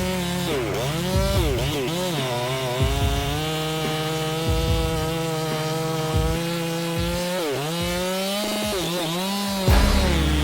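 Two-stroke chainsaw running at high revs in a cut, its engine pitch dipping sharply and recovering several times as the chain loads up in the wood.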